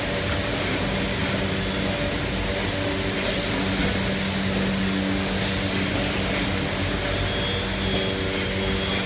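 Hard blister packing machine running: a steady motor hum under a broad mechanical clatter, with short hisses now and then.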